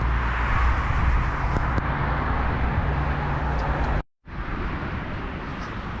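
Steady vehicle and road traffic noise, a low rumble with a broad hiss, cut off sharply for a moment about four seconds in before it carries on.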